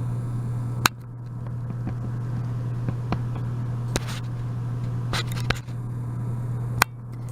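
A handful of sharp clicks and taps from the camera being handled while it is zoomed and focused, over a steady low hum.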